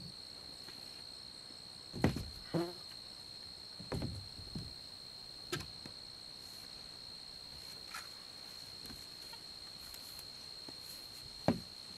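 Hollow knocks and thumps of a plywood sheet being handled and set against a wooden box frame, about seven in all, the loudest about two seconds in and near the end. A steady high-pitched insect drone runs underneath throughout.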